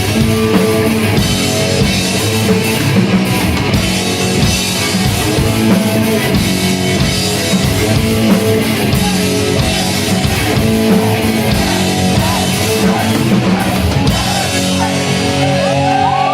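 Rock band playing live, loud and dense, with a full drum kit and distorted electric guitars. Near the end the playing thins out and a few high whoops rise over it.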